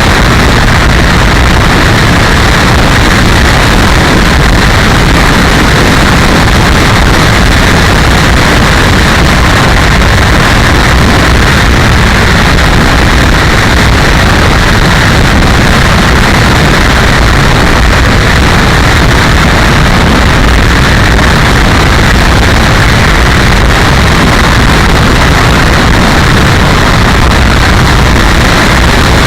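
Loud, steady rushing noise with a fluttering low rumble and no clear pitch, the sound of wind buffeting the microphone.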